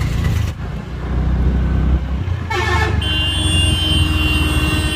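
Steady low rumble of a motorcycle on the move. About three seconds in, a vehicle horn sounds and holds steadily for about two seconds.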